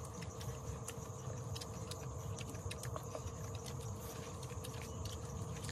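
Small, irregular clicks and scrapes of a knife cutting into a boiled pork head, over a faint steady hum.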